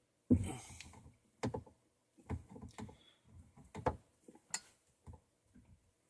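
Scattered clicks and knocks of PVC pipe fittings and parts being handled and fitted by hand, about half a dozen over several seconds, the loudest one near the start.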